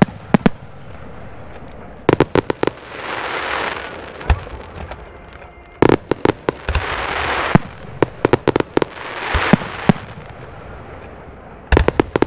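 Aerial firework shells bursting overhead in quick volleys of sharp bangs. Between the volleys come several stretches of dense crackling hiss from crackling and glittering stars.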